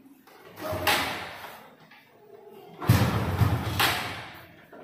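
Motorcycle being kick-started: the kick-starter is stomped twice, the second stroke heavier, with a low rumble as the engine turns over. The engine does not catch; it is cold after sitting unused for about two months, and the battery is dead.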